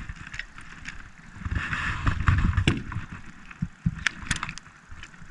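Low rumbling handling noise in an aluminium jon boat, with a few sharp clicks and knocks, two close together about four seconds in.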